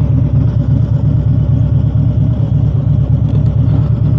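Touring motorcycle engine running steadily at low speed, a constant low-pitched engine note as the bike rolls through a slow right turn.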